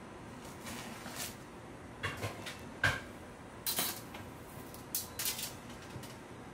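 Handling noise at a bakery work table: about five sharp knocks and short scrapes as a long cake knife and utensils are put down and moved, the loudest knock about three seconds in.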